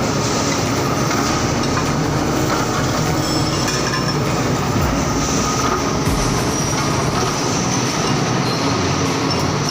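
Steady, loud mechanical din of forging-shop machinery running on a bolt-head production line.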